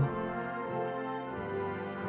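Soft, slow background music of sustained, layered notes, with the bass note changing twice.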